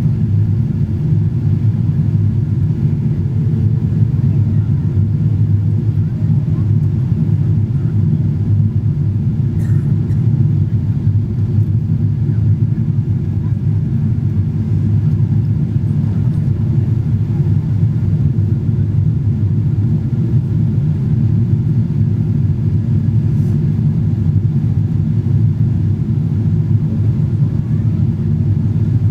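Steady low rumble of engine and airflow noise inside the cabin of a Boeing 777-200 airliner on approach.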